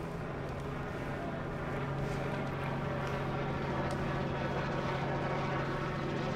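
A steady engine drone with a constant low hum, growing a little louder about two seconds in.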